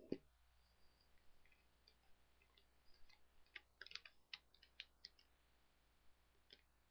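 Faint, scattered crackles and clicks of origami paper being folded and creased by hand, thickest about three to five seconds in.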